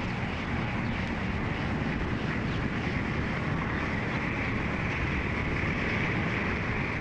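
Steady rumbling noise with a hiss on top, like street traffic, from an old black-and-white film's soundtrack.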